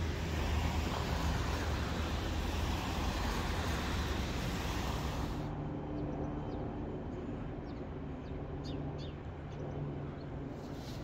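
Outdoor vehicle and traffic noise. A steady wash of noise over a low hum drops away suddenly about halfway through, leaving a quieter steady low hum with a few faint high chirps near the end.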